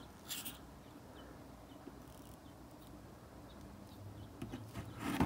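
Quiet handling noise while a two-part epoxy syringe is squeezed out: a sharp click at the start, a few faint ticks, and short rustles near the end.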